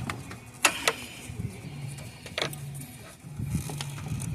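Sharp plastic clicks and knocks from hands working a coolant hose connector in an engine bay, three clear ones in the first two and a half seconds, over a steady low hum.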